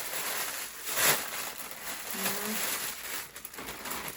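Packaging rustling and crinkling as parcels and clothes are handled, with a sharper rustle about a second in and a brief voiced hum a little after two seconds.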